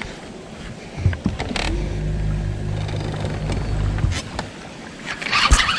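A boat motor hums steadily for about two seconds in the middle, among scattered clicks and knocks of a fishing rod and reel being handled. Near the end comes a louder, noisy rush.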